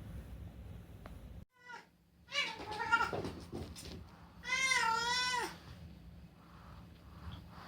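A domestic cat meowing: a short call, then two longer meows, the last and clearest one about a second long with a pitch that wavers up and down.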